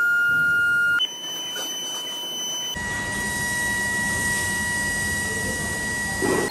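Induction furnace melting scrap metal, giving off a steady high-pitched whine. The whine jumps to a new steady pitch about a second in and again a little before halfway, where a steady hiss of the melt joins it.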